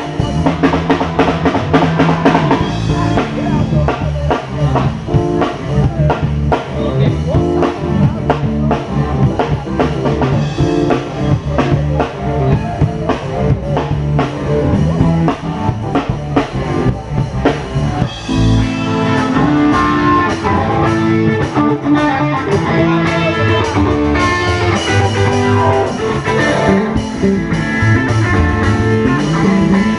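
Music with a drum kit and guitar playing steadily throughout.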